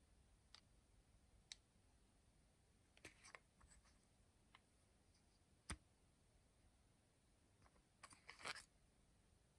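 Faint handling noise of vintage fountain pens turned in the fingers: scattered light clicks and scrapes, one sharp click a little past halfway, and a short scrappy cluster near the end.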